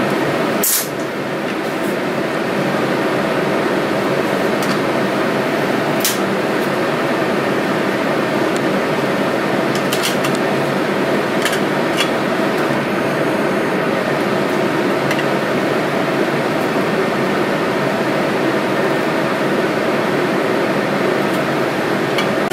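Laminar flow hood blower running steadily, a constant rush of air, with a few light clicks of plastic petri dishes being handled.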